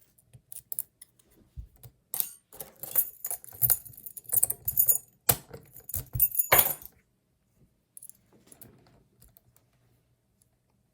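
Light metal clicking and rattling of lock picks working a Master Lock Magnum padlock, busiest from about two to seven seconds in, with a few sharper metallic knocks, then only faint rattling.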